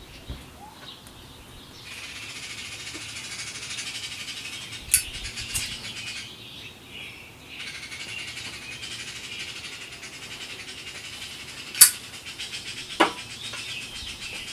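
A lighter's flame hissing in two long stretches as a tobacco pipe is lit, broken by a short pause, with sharp clicks near the middle and near the end.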